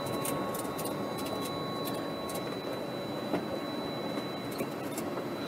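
A steady mechanical hum with thin, high whining tones, over which light clicks and taps come from the composite side panel being handled and fitted over the spare wheel; one small tap stands out about three seconds in.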